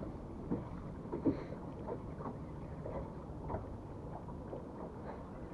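Steady low wind rumble on the microphone with faint, irregular slaps of water against a boat's hull.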